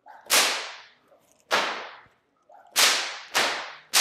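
A whip cracking four times, alternating overhead and reverse overhead cracks with spins between them (the helicopter pattern). Sharp, loud cracks about a second and a quarter apart, the last two closer together.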